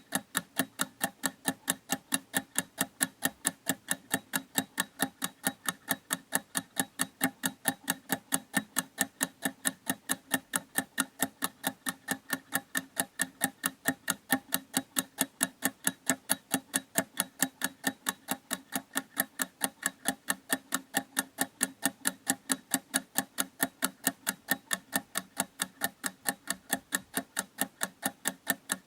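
Clock ticking steadily, with fast, evenly spaced ticks that never change pace.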